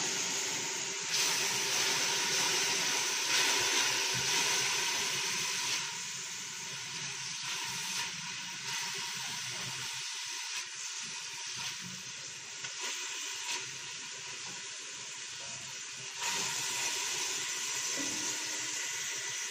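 Grated tomato sizzling as it fries with onion, garlic and carrot in a stainless steel pot while being stirred. The sizzle is louder for the first few seconds, drops off in the middle, and picks up again near the end.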